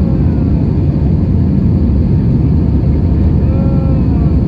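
Steady low roar of engine and airflow noise inside an Airbus A320's passenger cabin in flight.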